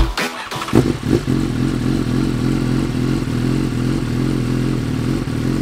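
Motorcycle engine idling steadily through its exhaust, at an even pitch, coming in under a second in.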